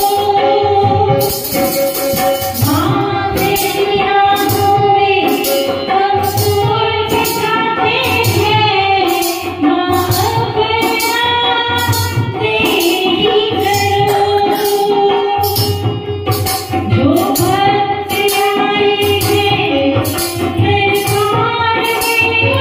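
A woman singing a Hindi devotional bhajan through a microphone and PA, over electronic keyboard accompaniment with a steady, evenly repeating percussion beat.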